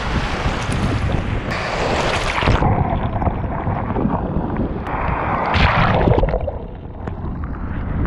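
Ocean surf breaking and foamy wash rushing up the sand right around a camera held at the waterline, with low rumble of water and wind on the microphone. The wash surges twice, about two seconds in and again about five and a half seconds in.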